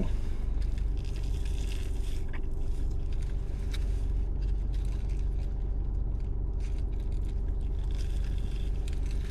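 Steady low rumble and hum of an idling car heard from inside the cabin, with a few faint clicks and rustles of eating.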